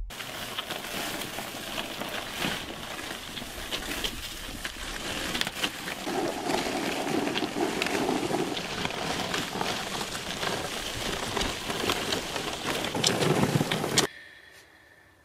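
Gravel crunching and scraping under a heavy black plastic trash bag dragged across it: a steady gritty hiss with many small clicks that cuts off suddenly about a second before the end.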